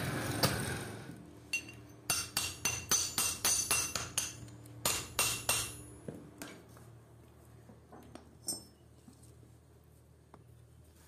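A hammer striking the back of a steel blade driven into a wooden handle blank: about a dozen quick, ringing metallic strikes over roughly four seconds, then only a few faint taps.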